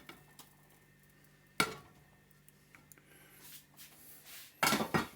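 Utensil knocking and scraping against a cooking pot while grated cheese is added to a thickening white sauce: one sharp knock about a second and a half in, then a quick flurry of scrapes and clinks near the end.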